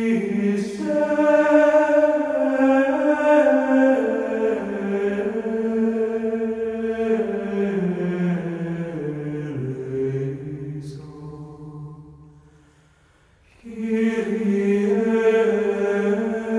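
Slow, unaccompanied sung chant. A phrase moves step by step downward in pitch and dies away about twelve seconds in, then a new phrase begins about a second and a half later.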